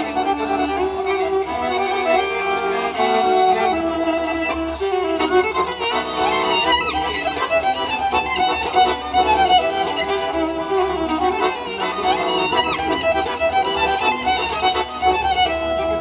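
Violin and Victoria piano accordion playing a musette waltz together, the violin leading the melody over the accordion, its line growing busier and faster about six seconds in.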